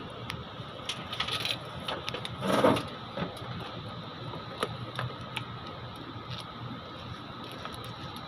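Electrical wire and cable being handled and pulled out by hand: soft rustling and scattered light clicks, with one louder rustle about two and a half seconds in, over a steady mechanical hum with a faint high tone.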